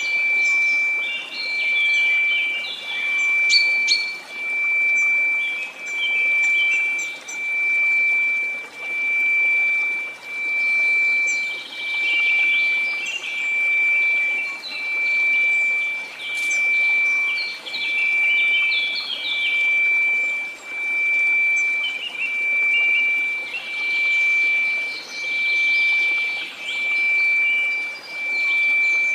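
A steady pure tone at about 2334 Hz over a hiss of white noise, the whole swelling and fading evenly about once every one and a half seconds. Bird chirps are scattered through it.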